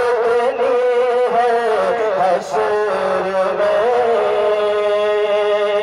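Solo voice singing a naat in a wavering, ornamented melodic line, settling into a long held note about four seconds in.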